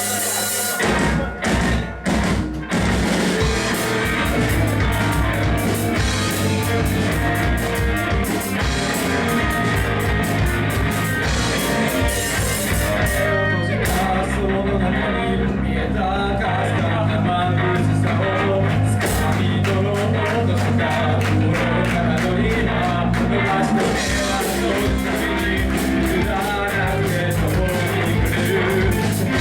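Rock band playing with drum kit, electric guitar and bass, with a few sharp stop-time hits near the start before the full band plays on.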